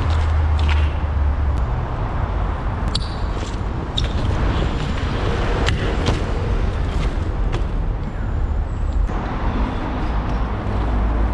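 BMX bike ridden on concrete, with sharp clicks and knocks from the tyres and frame meeting the ground, over a steady low rumble.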